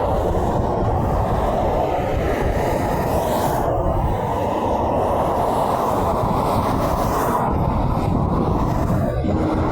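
Steady rumble of heavy road traffic, semi trucks running past. A horn sounds a steady tone starting just before the end.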